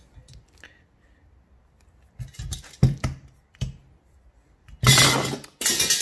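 A few light clicks and knocks, then a clear plastic parts bag crinkling loudly for about a second near the end.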